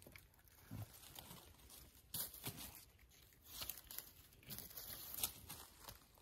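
Faint rustling and crackling of dry fallen leaves as hands work through the leaf litter while a mushroom is cut and trimmed, with a few brief louder crackles.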